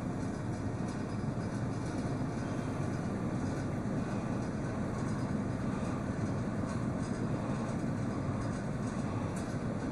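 Steady low rumble of fast-flowing floodwater rushing across a road.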